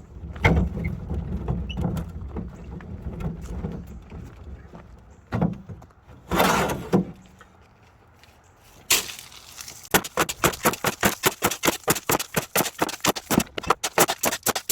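Crushed-stone ballast being worked by hand: scrapes and crunches, then a fast, even run of sharp gravel crunches, several a second, over the last few seconds. A low steady rumble sits under the first few seconds.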